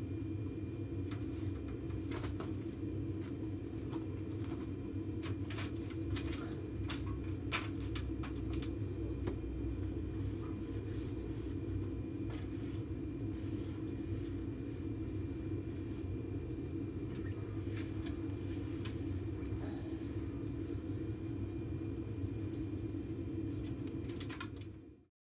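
A steady low mechanical hum at an even level, with scattered light clicks and taps over it; the sound cuts off abruptly near the end.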